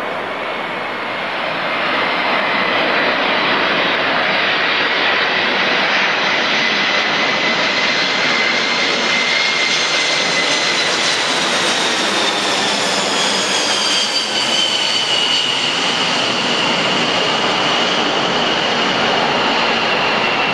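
Boeing 747's four jet engines on final approach with landing gear down, passing low overhead. The engine noise grows louder about two seconds in, and its high whine slides lower in pitch as the jet passes over and moves away.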